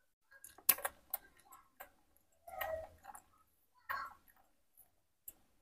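Baby monkey sucking on a milk bottle's rubber teat: a scatter of sharp wet clicks and smacks, with two brief pitched sounds about two and a half and four seconds in.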